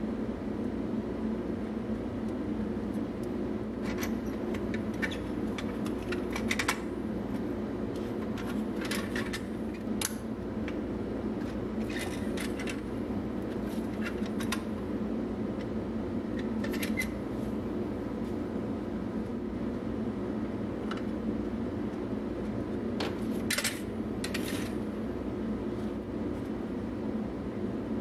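Pliers and a prying tool clicking and scraping against the thin pressed-metal body of a vintage toy truck as its tabs are bent and parts worked loose: scattered short metallic clicks, a few close together, every second or few. A steady hum runs underneath.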